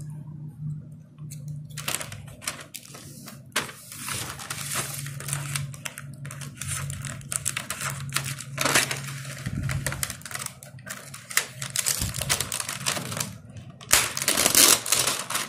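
Clear plastic packaging wrap crinkling and rustling in irregular crackles as hands handle and pull at it, starting about two seconds in and loudest near the end. A steady low hum runs underneath.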